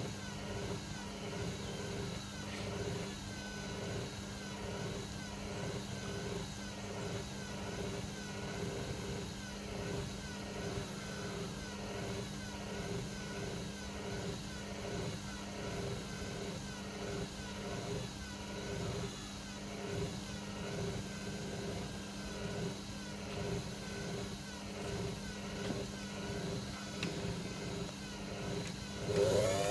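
Servis Sapphire 6055 washing machine turning its drum at low speed, with a steady motor hum and a regular rhythm a little faster than once a second. Near the end the motor starts a rising whine as it speeds up toward the spin.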